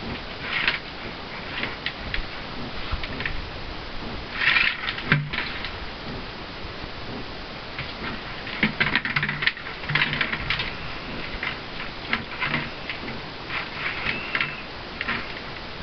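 Clear plastic pretzel jar with a ball inside being pushed and swatted across a wooden floor by a dog: irregular plastic clattering and knocking, with the loudest flurries about four seconds in and again around nine to eleven seconds in.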